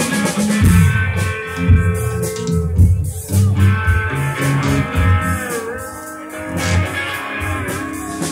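Live band music: amplified electric guitar playing held, bluesy lead notes with a string bend around the middle, over bass guitar notes.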